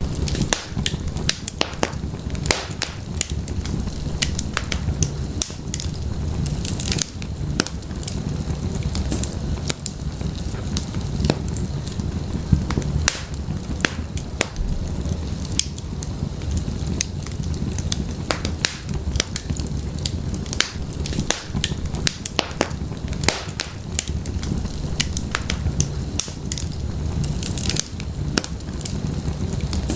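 Wood fire burning in a fireplace: many sharp, irregular crackles and pops from the burning firewood over a steady low rumble of the flames.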